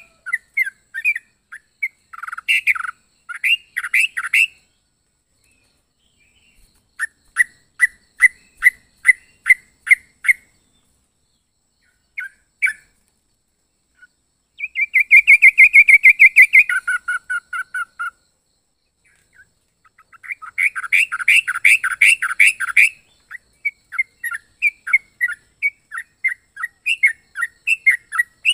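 Caged yellow-vented bulbul (trucuk) calling in runs of quick chirps, with short pauses between the runs. About halfway through it gives a fast trill that drops to a lower pitch, then a dense burst of chirps.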